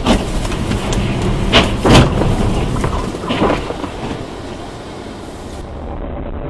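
Car in motion on a snowy street, heard from inside through a dashcam, with a run of about five sharp knocks and bangs in the first three and a half seconds, the loudest about two seconds in. A steadier road noise follows.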